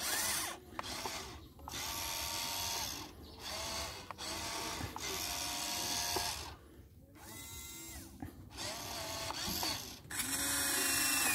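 Electric gear motors of a toy Volvo RC excavator whirring as the boom, arm and bucket are driven from the remote. The whine runs in repeated bursts of one to two seconds with short stops between them, and the last burst near the end is the loudest.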